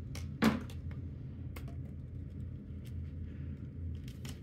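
Scattered light clicks and taps of a plastic lightsaber blade knocking against its metal hilt as it is lined up and fitted into the emitter, with one louder knock about half a second in.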